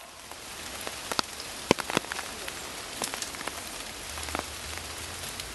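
Rain falling on forest foliage: a steady hiss with scattered sharp ticks of single drops.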